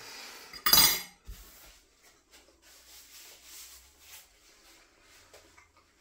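A man chewing a mouthful of pasty and wiping his mouth with a paper napkin: soft rubbing and rustling, after a short loud burst of noise about a second in.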